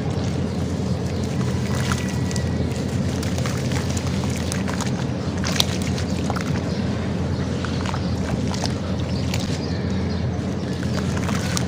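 Hands squishing and crumbling wet sand-cement chunks in water in a plastic tub: sloshing with scattered gritty clicks and crackles, over a steady low rumble.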